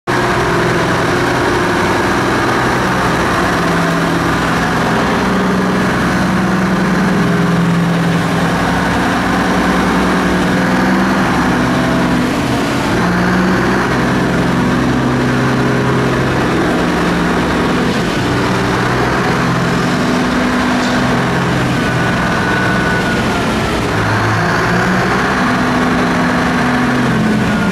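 Liebherr T 236 mining dump truck's big diesel engine running as the truck moves off, its note stepping up and down in pitch.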